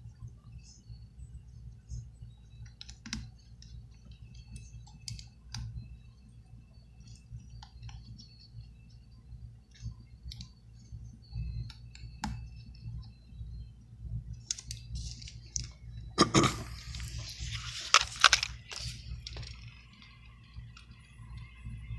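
Small tools clicking and tapping on smartphone parts during repair: scattered light ticks and taps, with a louder spell of clattering and scraping about three-quarters of the way through, over a steady low hum.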